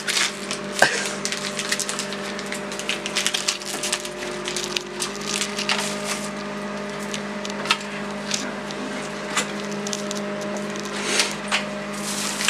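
A plastic snack wrapper crinkling in quick, irregular crackles as it is torn open and handled, with a plastic grocery bag rustling, over a steady low hum.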